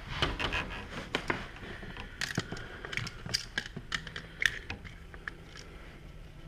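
Handling noise: irregular small clicks, taps and light scrapes, as of a small camera or hardware being moved and set in place.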